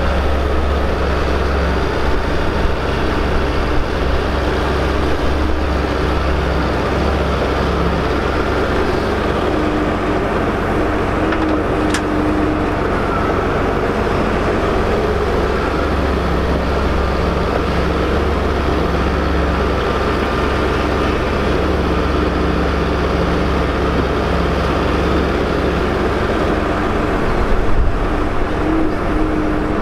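Doosan DX140LC tracked excavator's diesel engine running steadily under working load as it digs and swings its bucket to load a dumper. There is a single sharp click about twelve seconds in.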